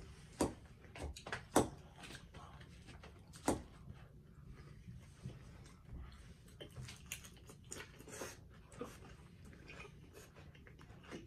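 Close-miked eating sounds: a metal fork clicking and scraping against a glass salad bowl in the first few seconds, then chewing of crunchy salad with small mouth clicks and smacks.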